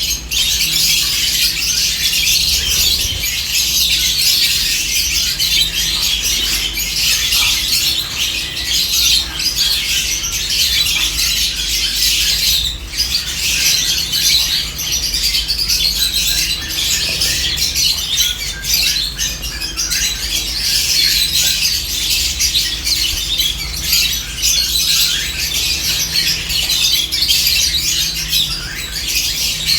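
A flock of lovebirds chirping and squawking nonstop, a dense overlapping high-pitched chatter with no pauses.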